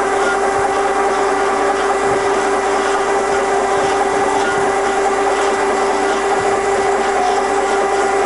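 Kasto Twin A4 double-column automatic bandsaw cutting, its blade fed slowly into the material on a clean-up cut. A steady machine hum with a constant tone that holds even throughout.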